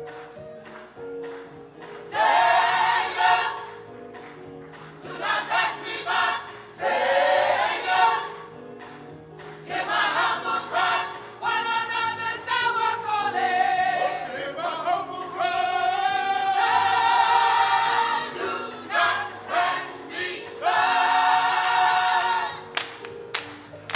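Gospel choir singing in phrases of several seconds, over sustained instrumental accompaniment.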